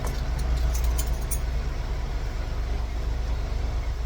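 A steady low engine rumble, like a vehicle idling, underlies everything. In about the first second a few light metallic clicks and jingles sound as keys and lock parts are handled.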